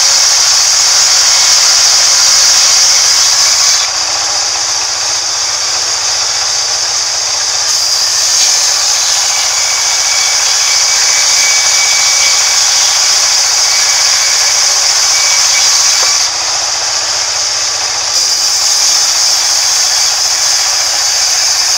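Sawmill band saw cutting lengthwise through a wooden slab: a loud, steady, high-pitched sawing noise. Its highest part drops away twice for a few seconds, about four seconds in and again about sixteen seconds in.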